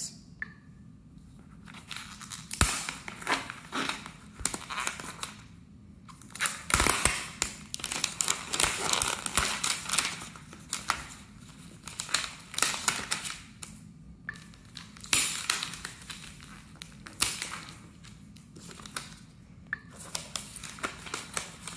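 Thin plastic wrap crinkling and rustling in irregular bursts as it is peeled off a laptop by hand, with short pauses and a couple of soft knocks.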